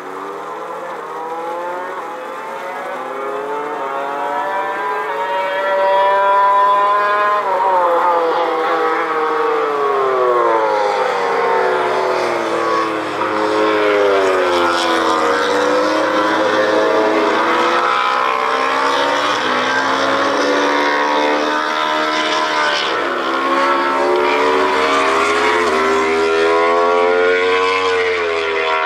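MotoGP racing motorcycle engines on track, their pitch climbing and dropping again and again through gear changes. The sound builds over the first six seconds or so, then stays loud.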